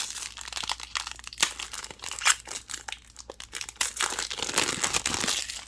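Foil booster pack wrapper being crinkled and torn open by hand: a run of sharp crackles, densest in the last couple of seconds, then stopping abruptly.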